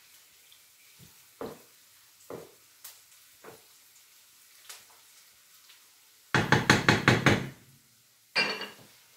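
A few soft, scattered knocks, then a quick loud run of about eight knocks in a second, and one more loud knock near the end.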